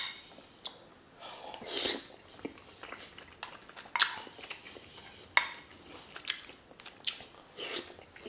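Metal spoon clinking and scraping against a glass bowl, single sharp clinks a second or more apart, between soft mouth sounds of eating broth.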